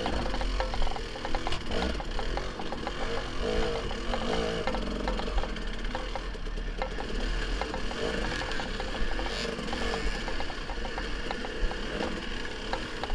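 Dirt bike engine running under load on a steep rocky climb, with the clatter and knocking of tyres and bike over loose rock, heard from a helmet-mounted camera.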